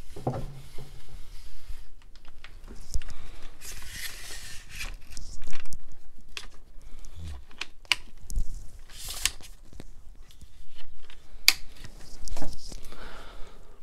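Handling noise close to the microphone: scattered clicks and taps, a few short rustling brushes and soft low thumps, with the sharpest click near the end.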